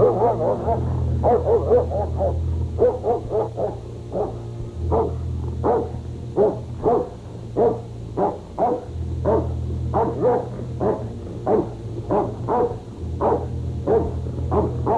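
A dog barking over and over, about one to two barks a second, over a low sustained music drone.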